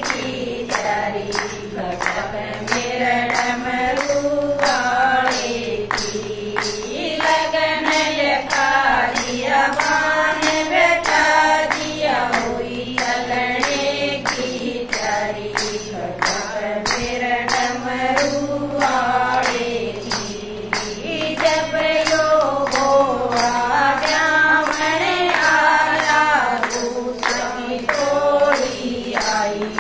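Women singing a Haryanvi Shiva bhajan together, with steady hand-clapping in time with the song.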